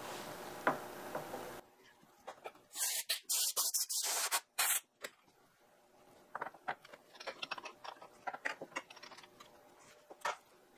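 An aluminium block and steel parallels being handled in a milling vise: a few short scrapes of metal sliding on metal in the first half, then scattered light clicks and knocks as the block is seated. Near the end there is a soft tap from a dead-blow hammer seating the block down on the parallels.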